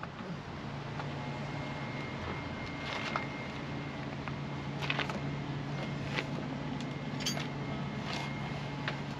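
A steady low mechanical hum, like a fan or motor, with a handful of light clicks and knocks scattered through it.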